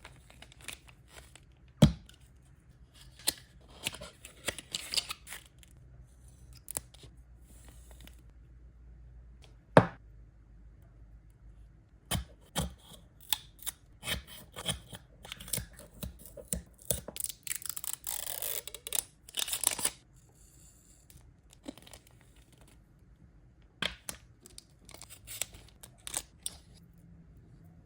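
Packaging being handled and torn open by hand: intermittent rustling and tearing, with a longer tearing stretch about two-thirds of the way through and a couple of sharp knocks.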